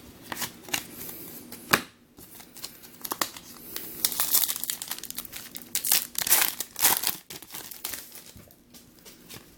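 Crinkling and tearing of a trading-card pack wrapper being handled and torn open, in irregular crackling bursts with small clicks, busiest in the middle of the stretch.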